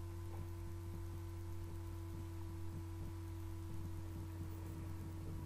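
Low steady hum with faint hiss: the background noise of the recording, with no other sound standing out.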